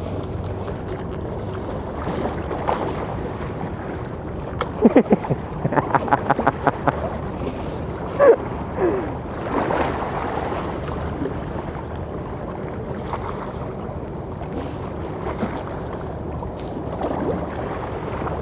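Wind on the microphone and open water, over a steady low hum. Around the middle comes a quick run of short clicks and a few brief pitched squeaks.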